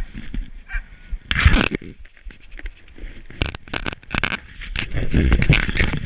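Footsteps running on snow, crunching and scuffing, with rustle and knocks against a body-worn camera. There is a loud scuff about a second and a half in.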